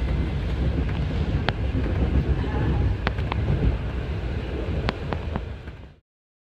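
Low rumble and wind noise of a moving train heard from on board, with a few sharp clicks about one and a half, three and five seconds in. The sound cuts off about six seconds in.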